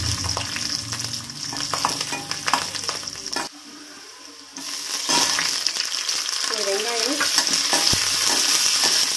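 Garlic cloves sizzling in hot oil in a metal kadai, stirred and scraped with a perforated metal spoon. The sizzle drops away for about a second a few seconds in, then resumes as chopped onion is tipped into the pan near the end.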